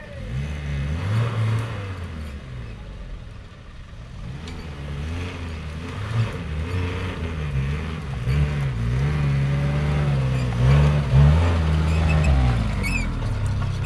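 Off-road 4x4's engine working under load, its revs rising and falling again and again as the throttle is worked. It grows louder from about a third of the way in and is loudest near the end.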